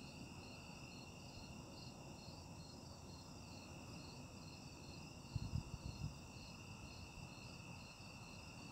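Crickets and other night insects chirping steadily at several pitches, one of them in an even, repeating pulse. About five seconds in there is a brief low bump.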